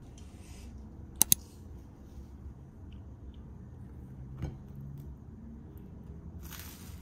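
Light tabletop handling: two sharp clicks in quick succession about a second in, a soft knock on the ceramic plate as a slice of toast is taken a few seconds later, and a brief rustle near the end.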